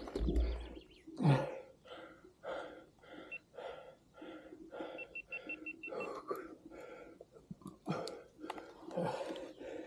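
A man breathing hard and fast after riding, panting at about two breaths a second, each breath a short noisy puff.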